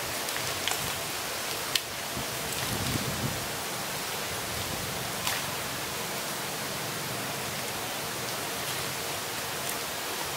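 Steady, even hiss of outdoor background noise, with one sharp click a little under two seconds in and a few fainter ticks.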